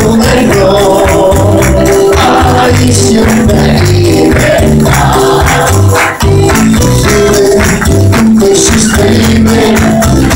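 Loud live worship music: a band with a steady bass line and percussion, with voices singing along.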